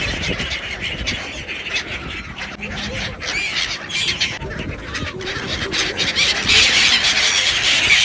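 A flock of gulls calling while being hand-fed, many short cries overlapping at once.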